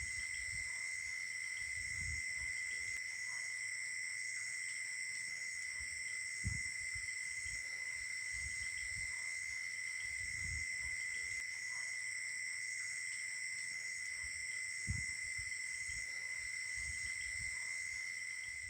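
Night insect chorus: several insects trilling steadily at different pitches, one of them pulsing about twice a second. Two soft low thumps about six and fifteen seconds in.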